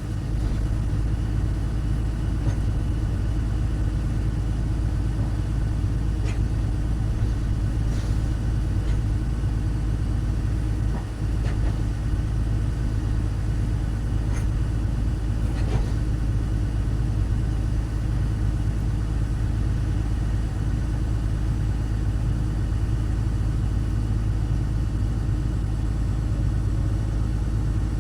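Excavator's diesel engine running steadily, with a few faint clanks now and then.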